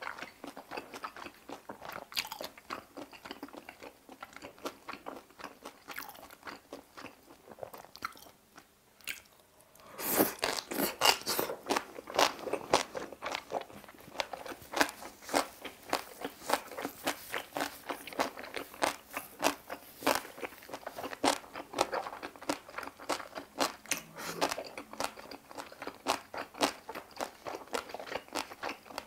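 A person chewing close to the microphone. The first several seconds hold sparse, soft mouth sounds, and it goes almost quiet just before ten seconds in. Then loud, rapid crunching of a fresh crunchy mouthful starts and carries on steadily.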